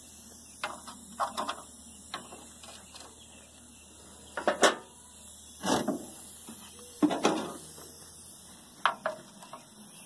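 Hand tools and metal engine parts clanking and knocking at irregular intervals while a scrap engine's timing cover area is worked on, about half a dozen knocks with the loudest a little under halfway in.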